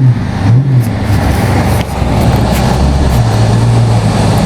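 Car engine and road noise heard from inside the cabin while driving. The engine note rises and falls briefly twice near the start, then runs steady.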